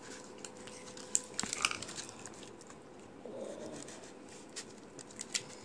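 Thickening glue-based slime being stirred and pulled in plastic bowls with wooden craft sticks: faint, scattered sticky clicks and squishes.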